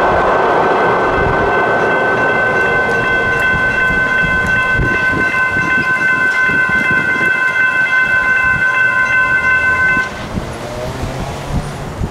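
ASC electronic crossing bells at a light rail grade crossing ringing steadily, over the rumble of a Siemens-Duewag U2A light rail train that fades in the first couple of seconds. The bells cut off suddenly about ten seconds in, as the crossing gates begin to rise.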